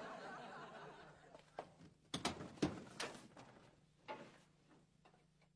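A soft rustling noise, then a refrigerator door opened: a quick run of sharp clicks and knocks from the door and the bottles and cans in its shelves, with one more knock a little later.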